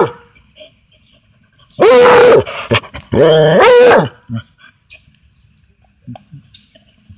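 Redbone Coonhound giving two long, loud barks, about two and three seconds in, after the tail end of another right at the start.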